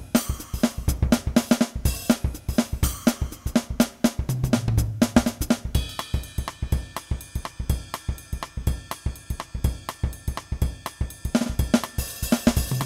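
Background music with a fast drum-kit beat of kick, snare and hi-hat. About six seconds in, held chords join the beat, and they drop out again near the end.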